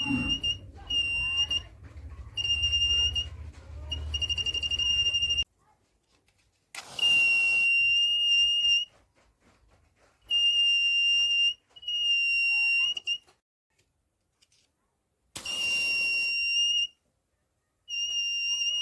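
Buzzer of a homemade BC547 fire alarm circuit giving a steady high-pitched beep, switching on and off in bursts of about half a second to two seconds as its IR flame sensor is triggered and released. A low hum sits under the first few seconds, and a short hiss comes with two of the bursts.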